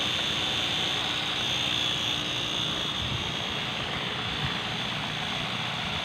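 Pond paddlewheel aerator running steadily: a continuous motor drone with water churning and splashing.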